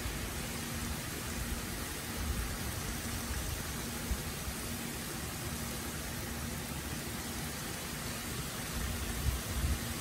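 Heavy rain falling steadily, a dense even hiss, with a couple of low rumbles near the end.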